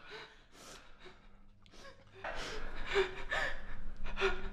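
A person breathing hard in a run of sharp, audible gasps, quiet at first and louder from about two seconds in. A low steady hum sets in under them at about the same time.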